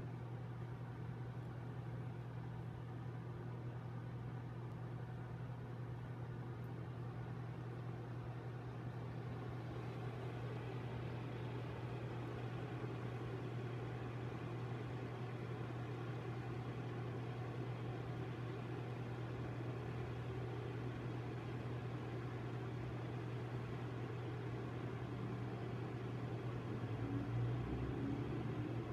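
A steady, low mechanical hum, getting a little louder near the end.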